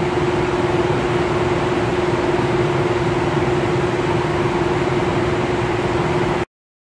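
Steady mechanical drone of machinery running, a constant hum over an even hiss, which cuts off suddenly near the end.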